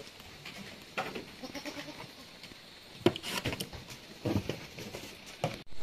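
Anglo-Nubian goats bleating in the pen: three short bleats, about one, three and four and a half seconds in.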